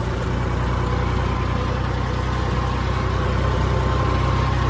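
John Deere 5210 tractor's diesel engine running steadily as the tractor drives along a road, heard from the driver's seat: a constant low rumble with a faint steady whine on top.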